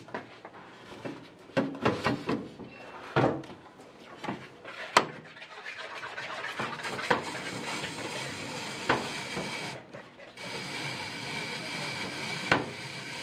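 Irregular clicks and knocks of a hand-cranked plastic potato spiralizer as a peeled raw potato is fitted onto it and turned, cutting it into long noodle strands.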